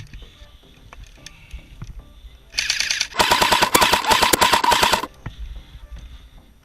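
Airsoft light machine gun firing on full auto: a short burst about two and a half seconds in, then a longer burst of about two seconds of rapid shots with a steady whine under them.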